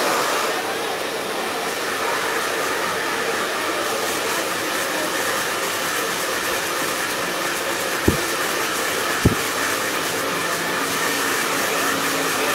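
Handheld hair dryer blowing steadily as it dries a client's hair. Two short thumps break in about eight and nine seconds in.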